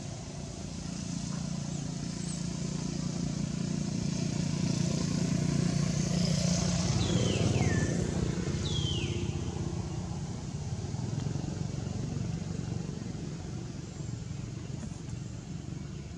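A motor vehicle passing by: a low engine rumble that builds to its loudest about seven seconds in and then fades away. Two short high calls that fall in pitch come near the middle.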